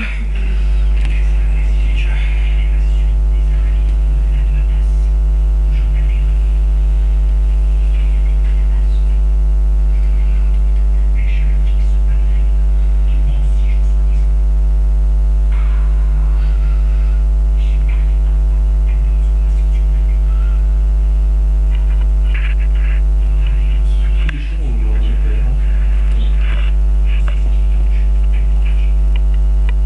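Loud, steady electrical hum with a buzzy stack of overtones that never changes, with faint rustling and handling sounds over it.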